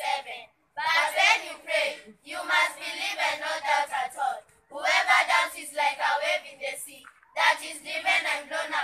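Children's choir singing in short phrases of about two seconds, with brief pauses between them.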